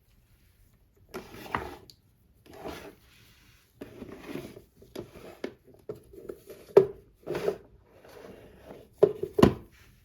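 Hands handling hard objects on a work surface: irregular scraping and rubbing, with a few sharp clicks or knocks about two thirds of the way through and twice near the end.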